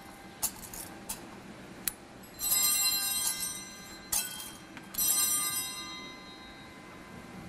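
Altar bells rung at the consecration of the Mass. There are a few light single chimes, then two long shaken rings, one about two and a half seconds in and one about five seconds in, each dying away over a second or so.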